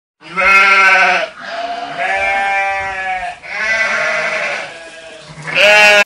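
Sheep bleating: four long calls one after another, the first and last the loudest, the last cut off suddenly.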